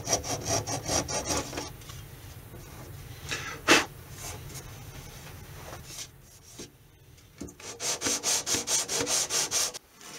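Hand work on a guitar's wooden fretboard: quick back-and-forth rubbing strokes, first from a flat steel blade scraping the board, then from a small sanding block rubbed along it near the end. One sharp knock falls a little before four seconds in.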